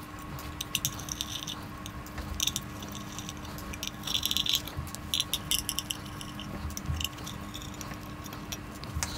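Small metal screws clicking and rattling as they are backed out of a ZWO electronic filter wheel's cover plate and picked out by gloved fingers: irregular light clicks over a faint steady hum.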